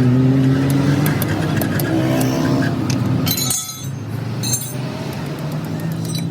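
An engine running steadily, its pitch drifting a little, with scattered light metallic clicks.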